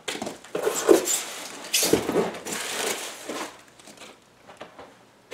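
Styrofoam packing and cardboard box being handled: irregular rustling and scraping with a few knocks, busiest for the first three seconds or so, then only a few faint ticks.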